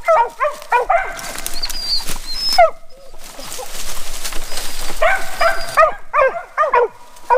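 Mountain Cur dogs barking in rapid runs, about three barks a second. The barking pauses for a few seconds in the middle, when a steady hiss takes over, and picks up again near the end.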